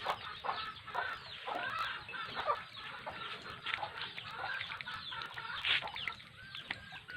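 Chickens calling in the yard: many short clucks and calls overlapping, one after another.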